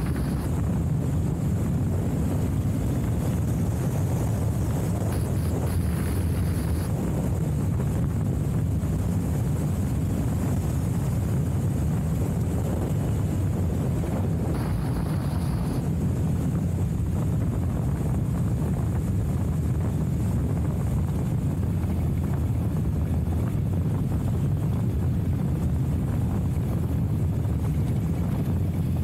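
Steady low drone of a vehicle travelling at an even speed on a gravel road, engine and tyres running together. A short high hiss comes in twice, about five seconds in and again about fifteen seconds in.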